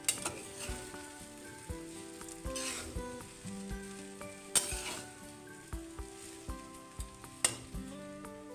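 Leftover rice frying and sizzling in a metal kadai while a flat metal spatula stirs it, with a few sharp scrapes of the spatula against the pan at the start, a little past halfway and near the end.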